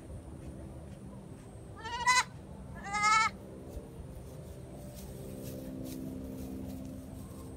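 Young goat kid bleating twice, about a second apart, each a short quavering cry. A faint low steady hum comes in over the second half.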